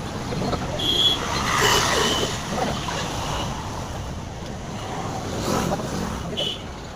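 Motor vehicle engine and exhaust running, a steady rough noisy rumble. A few short high chirps sound about a second in, near two seconds, and again near the end.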